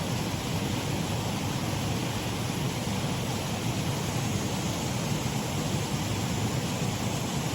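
Water running steadily over a shallow waterfall in a stream.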